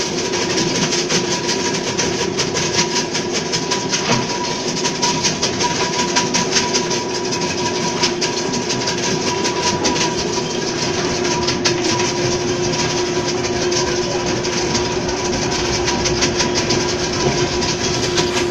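Electric ice block crusher machine running: a steady motor hum with a constant fast rattle, unchanging throughout.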